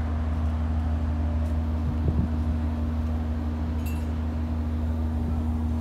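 Steady low drone of ship's machinery with a constant hum, unchanging throughout, and a light knock about two seconds in.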